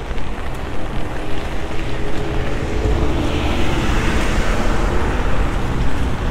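Road traffic on wet tarmac over a steady low rumble. A vehicle passes close a few seconds in, its tyres hissing through the surface water as the sound swells and fades.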